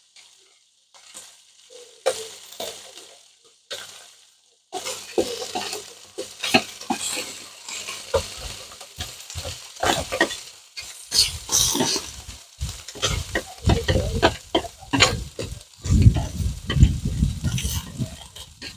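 Beef steak slices sizzling on a hot electric grill plate, with wooden chopsticks clicking and scraping on the plate as the pieces are moved and turned. The sizzle starts about five seconds in, after a few scattered short clicks.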